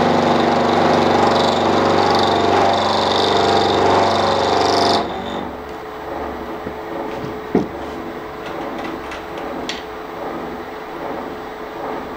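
Milling machine running steadily with its end mill in the teeth of a ring gear, then stopping abruptly about five seconds in. After that come a few light clicks and a single knock as the rotary table is handled.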